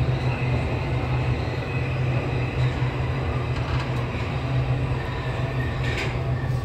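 Budapest M4 metro train (Alstom Metropolis) running through a tunnel: a steady low rumble of wheels on rail with a faint whine above it, echoing in the tunnel. A short brighter squeak comes near the end as the train reaches the platform.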